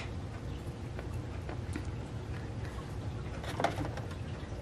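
Faint clicks and taps of small ink bottles and jars being handled in a plastic basket, with a slightly louder cluster of ticks about three and a half seconds in, over a steady low room hum.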